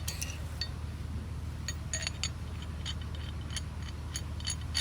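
Metal off-road recovery gear clinking lightly as it is handled and packed away: a string of short, scattered metallic clinks and ticks over a steady low hum.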